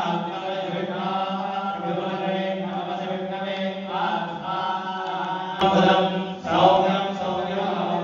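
Hindu priests chanting mantras in a steady recitation over a held low tone, with a single click a little past halfway.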